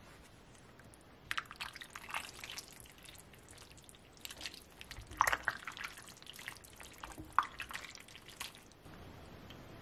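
A spoon stirring thick chili with beans and elbow macaroni in a slow cooker: irregular wet squelches and slops with a few light clicks, the loudest about halfway through. The sounds stop about a second before the end.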